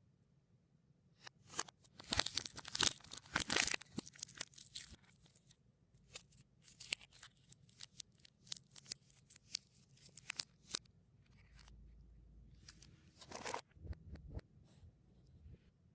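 Crinkly plastic snack wrappers being torn and handled, played in reverse. A dense crackling run lasts from about one to five seconds in, then scattered crinkles and ticks follow, and another short burst comes near the end.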